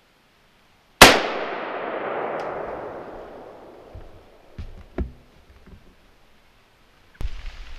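A single AR-15 rifle shot: a sharp crack about a second in, followed by a long echoing tail that fades over about three seconds. A couple of faint clicks follow.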